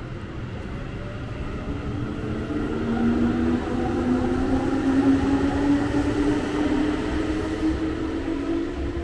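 Keihan Main Line electric train moving through the station, with a rumble and a motor whine that rises slowly in pitch. It grows louder to a peak about five seconds in, then fades.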